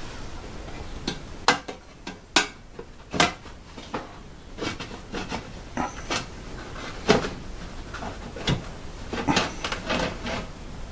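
Irregular clicks and knocks of hands working the metal casing of a Newton Tesla ML750 VFD loose, its rivets drilled out so the cover can be opened.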